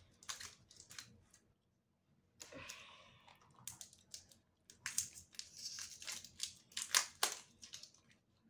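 Plastic wrapping layer of an LOL Surprise ball being peeled off and crinkled by hand: irregular crackles and rustles, with a brief pause about two seconds in.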